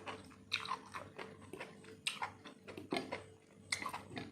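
Close-miked chewing of enoki mushrooms: a run of irregular, sharp mouth clicks and smacks.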